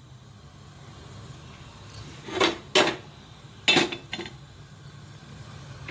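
Metal pressure cooker clanking against the gas stove's burner grate as it is set down: a handful of sharp knocks between about two and four seconds in, over a low steady hum.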